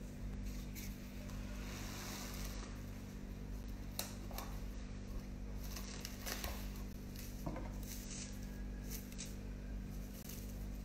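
Cling film being pulled from its box and smoothed flat on a countertop: crinkling, rustling plastic with a few sharp snaps, over a steady low hum.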